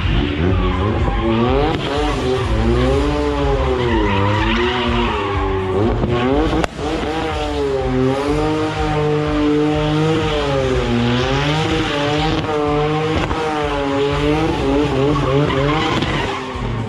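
Drift car's engine revving up and down in repeated waves while its tyres squeal and skid as it drifts.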